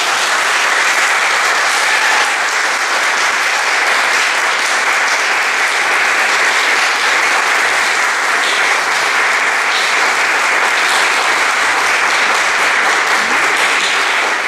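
Audience applauding, with steady, dense hand clapping.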